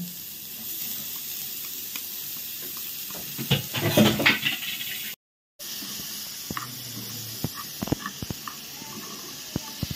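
Crumbled paneer tipped into a hot frying pan of sautéed onion and capsicum, the pan sizzling steadily. A spatula knocks and scrapes against the pan in a loud cluster about four seconds in, then stirs with light scrapes and taps. The sound breaks off for a moment about five seconds in.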